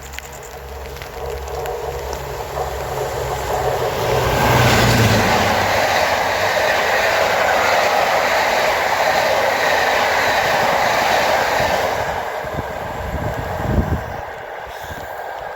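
A train passing: a low drone gives way to a rushing noise of wheels on rails that swells about four seconds in, stays loud for some eight seconds, then eases off, with a few sharp knocks from the wheels near the end.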